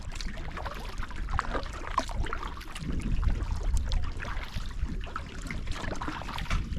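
A small boat being paddled across calm water: irregular splashing and dripping from the paddle strokes, over a low rumble.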